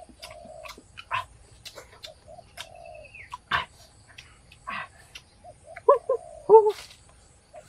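Short animal or bird calls repeating at the same mid pitch, with a cluster of higher cries about six seconds in, among scattered sharp clicks and crackles.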